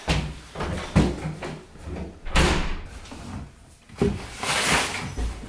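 Scuffle on a wooden floor: a series of heavy thuds and knocks, a swish about two and a half seconds in, and a longer rough scraping rush near the end.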